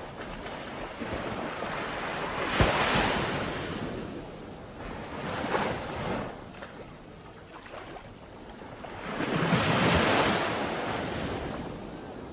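Sea waves breaking and washing on the shore, swelling and falling three times: a sharp crash about two and a half seconds in, a smaller surge around the middle, and a longer one near the end.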